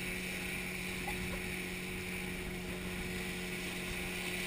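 Banana boat being towed at speed: a steady, even engine drone from the towing motorboat over the rush of water spraying along the float.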